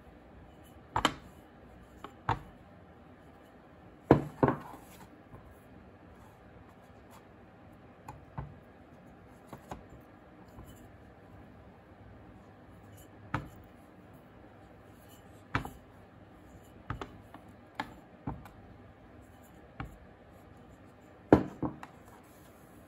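Scattered knocks and taps, about a dozen at uneven intervals with a few louder ones, as a small roller and hands roll and press air-dry clay flat on a tray.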